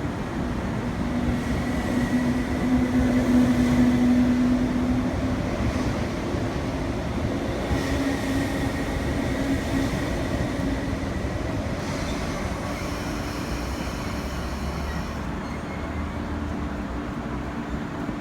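Electric train running through a station, a steady rumble with a low hum and a faint high tone. It is loudest about three to four seconds in, then eases off.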